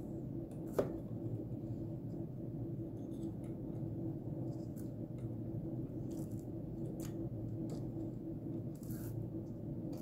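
Small clicks and taps of fingers handling a replacement resistor and a circuit board, fitting the resistor's leads into the board, over a steady low hum. The sharpest click comes about a second in.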